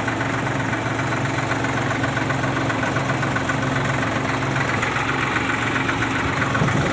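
A vehicle's engine running steadily with an even, low hum, heard from on board as it drives along a flooded road.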